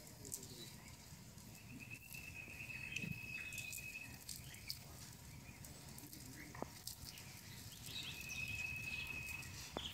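A high, steady insect trill, heard twice, each lasting about two and a half seconds, over a faint outdoor hush with a few soft ticks.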